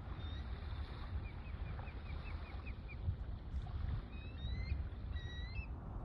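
Wind buffeting the microphone with a steady low rumble, with small birds calling over it: a quick run of about ten short chirps in the first half, then a few rising whistled notes near the end.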